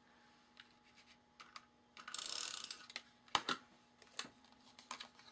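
Card stock and paper handled on a cutting mat: a short papery rasp about two seconds in, followed by a few sharp clicks and taps.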